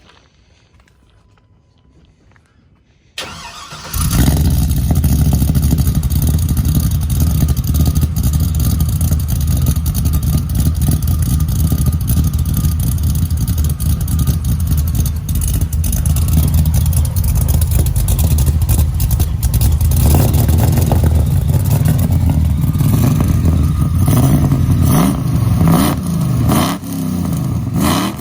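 5.3 L LS V8 with a BTR Stage 4 truck cam, exhausting through a Magnaflow muffler, started about three seconds in and settling into a steady idle. In the last several seconds it is revved several times, the pitch rising and falling.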